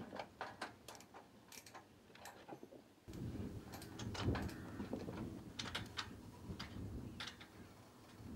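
Quiet irregular plastic clicks from solar panel cable connectors being handled and pushed together. About three seconds in, a low rumble sets in suddenly, with more scattered clicks and taps from work on the panels.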